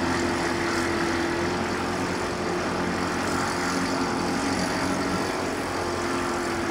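Boat engine running at a constant speed, a steady drone with an even hiss above it.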